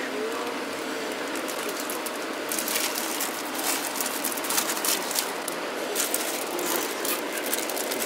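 Steady road and engine noise heard inside a moving vehicle's cabin, with a rapid crackling of sharp little ticks joining in from about two and a half seconds in.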